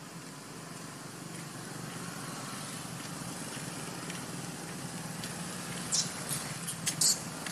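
A steady low mechanical hum, with several short, sharp rustles from about six seconds in.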